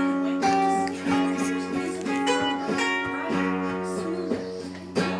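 Music: acoustic guitar playing, with repeated strummed and plucked chords ringing on.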